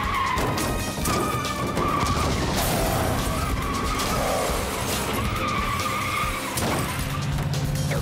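Cartoon car sound effects: a small car's engine running and its tyres screeching in a long skid, with music underneath. The screech stops about six and a half seconds in.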